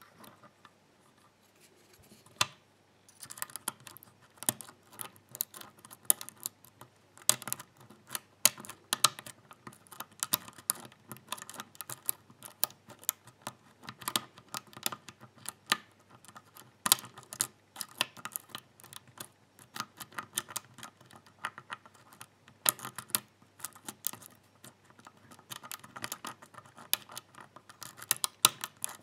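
Lock picking on a Schlage Everest pin-tumbler cylinder: a steel hook pick clicking and scraping against the pins in the keyway under tension, a long run of small, sharp, irregular clicks.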